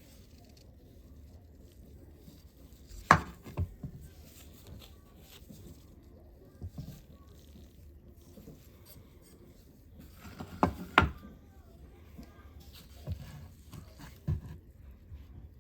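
Scattered knocks and clicks of parts and tools being handled on a workbench, a few seconds apart, with a pair of louder knocks about eleven seconds in.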